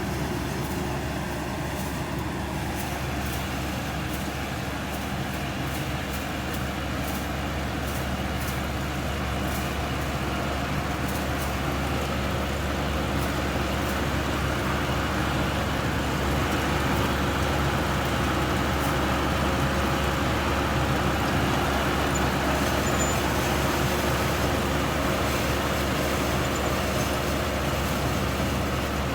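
Rice combine harvester running steadily, a continuous engine drone with mechanical noise, a little louder in the second half.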